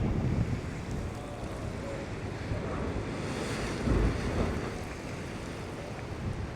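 Ocean surf washing against a rocky shore, with wind buffeting the microphone; a louder rumbling surge comes about four seconds in.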